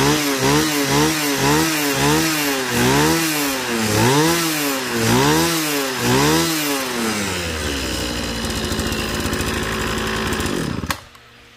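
Kawasaki TH34 brush cutter's 34cc two-stroke air-cooled engine being revved up and down about twice a second. It then settles to a steadier run and cuts out suddenly with a click near the end.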